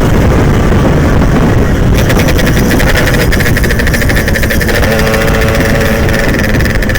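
Yamaha RX-King's 135cc single-cylinder two-stroke engine running on the move with wind rush. The revs ease off at the start, then the exhaust goes into a rapid, rough pulsing from about two seconds in.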